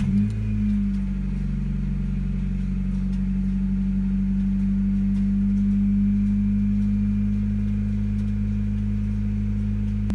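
Car engine just started, settling within the first second into a steady idle. It is running so the newly fitted, empty oil filter fills with fresh oil after an oil change.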